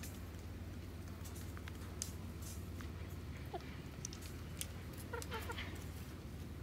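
Brown hens pecking at pancake scraps on the ground, beaks tapping in scattered short ticks, with one soft falling call about three and a half seconds in and a quick run of soft clucks about five seconds in. A steady low hum runs underneath.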